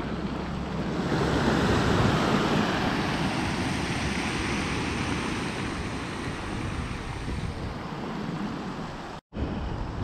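Sea waves breaking and washing up a pebble beach: a steady rushing surf that swells about two seconds in and slowly eases. The sound drops out for a moment near the end.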